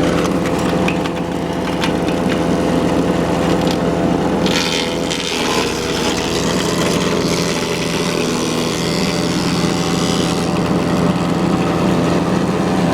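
GeoTech PCS70 BS wood chipper-shredder running steadily while it chews through branches. The engine dips briefly in pitch about five seconds in, and a coarse crunching rises over the engine there and again from about seven to ten seconds in.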